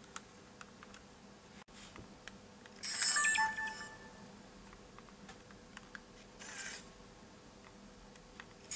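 A Sony DSC-W830 compact digital camera giving two short electronic sound effects from its built-in speaker, one about three seconds in and a matching one at the very end, with small button clicks and a softer brief noise from the camera in between.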